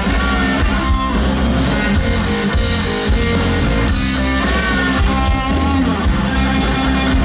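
Rock band playing live: electric guitar over a driving electric bass line, with a drum kit keeping a steady beat.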